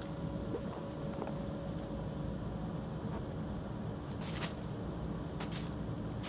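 Steady low mechanical hum of room background, like a fan or air conditioner running. Brief soft rustles or scuffs come about four seconds in and again about five and a half seconds in, from the cats playing with a small toy on the carpet.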